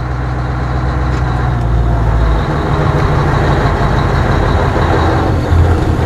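Scania 143M's 450 hp V8 diesel pulling the truck along in a low gear, heard from inside the cab. About two and a half seconds in, the engine note steps up as it picks up revs.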